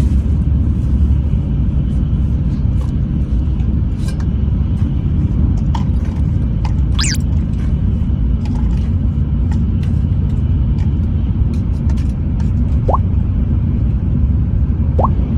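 Steady low rumble inside a Shinkansen train car. Two brief, faint rising squeaks come near the end.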